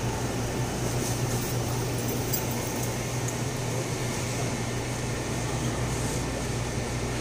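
Steady low hum and hiss of a supermarket's cooling equipment: air conditioning, drinks fridges and chest freezers running.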